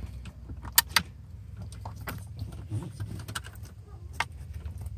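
Hands working at the wiring under a car seat: sharp plastic clicks and small rattles from the seat's connectors and frame. The two loudest clicks come close together about a second in, over a steady low rumble.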